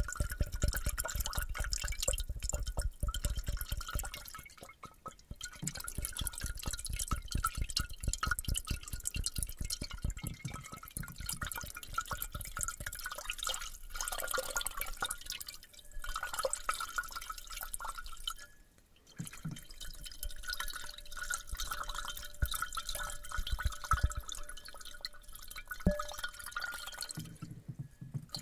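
Rapid wet clicking and crackling sounds close to the microphone, in dense runs broken by a few short pauses.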